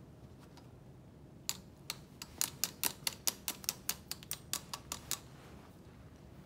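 Metal hemostat tapping against a plastic pressure manifold and syringe: a quick, even run of about seventeen sharp taps, about five a second, starting about a second and a half in and stopping about five seconds in. The taps knock trapped air bubbles loose so they rise out of the contrast line as it is drawn up.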